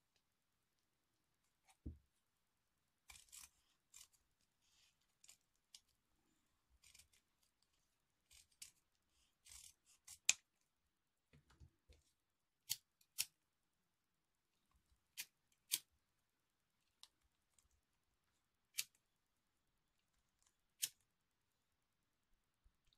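Quiet handling of ribbon with soft rustling, then scissors snipping: a series of sharp single snips, some in close pairs, in the second half.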